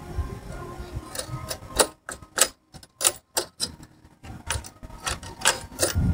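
Irregular small metallic clicks and clinks as a metal bracket and nut are fitted by hand onto a threaded bolt.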